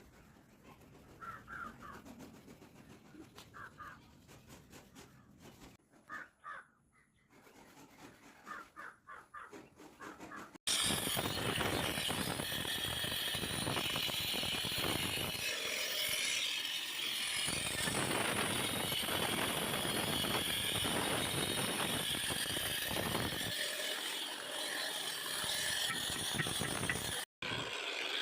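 Crows cawing over a faint background for about the first ten seconds. Then a concrete-cutting saw's blade cutting through concrete starts abruptly: a loud, steady, high-pitched grinding that briefly cuts out near the end.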